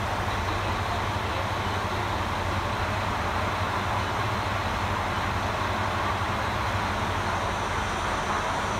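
JR Hokkaido KiHa 54 diesel railcar idling at a platform: a steady, unchanging low engine drone.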